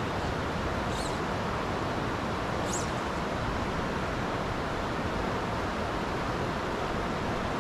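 Creek water running steadily over and between rocks, with two brief high chirps, one about a second in and one near the three-second mark.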